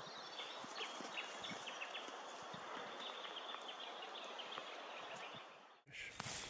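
Quiet Australian bush ambience with faint, rapid high ticking or chirping. Near the end it cuts off abruptly and louder rustling takes over.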